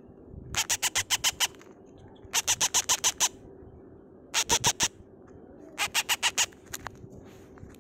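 Very young parrot chick peeping: four bursts of rapid, high-pitched cheeps, about eight a second, with short pauses between.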